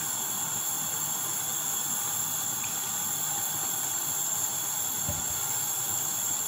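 Steady hiss with a faint high whine, under soft sounds of a hand mixing thick chickpea-flour batter in a bowl; a dull thump about five seconds in.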